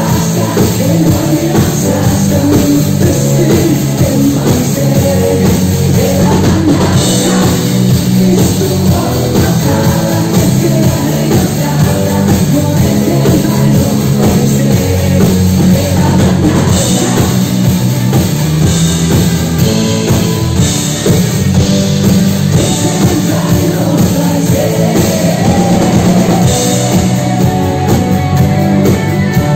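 Live pop-rock band with a woman singing lead in Finnish over drums and keyboards, heard loud from the audience.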